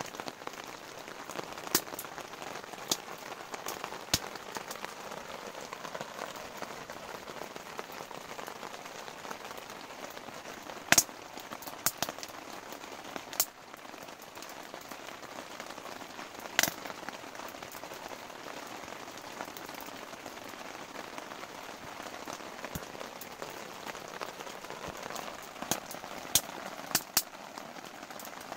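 Steady rain pattering on a tent, with scattered sharp ticks on top, a few of them much louder than the rest.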